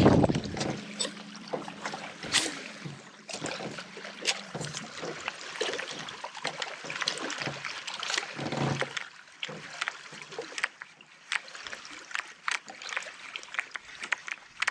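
Light water splashing and lapping around a small boat, with scattered small clicks and knocks at irregular moments. A faint steady low hum stops about four seconds in.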